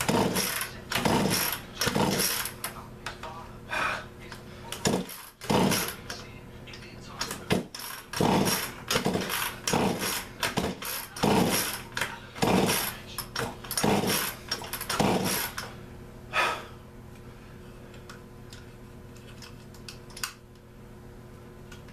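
Poulan Pro chainsaw's recoil starter cord pulled again and again, roughly one pull a second, turning the engine over without it starting; the pulls stop after about fifteen seconds.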